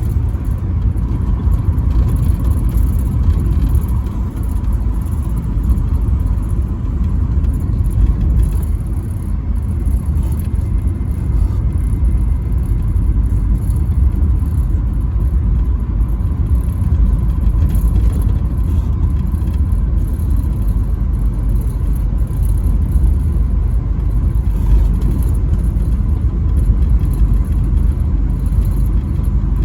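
Truck driving on the interstate: a steady low rumble of engine and road noise with a faint steady whine.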